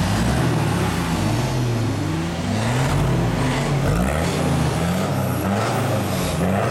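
Toyota 4x4's engine running while parked, a steady low drone whose pitch wavers slightly up and down.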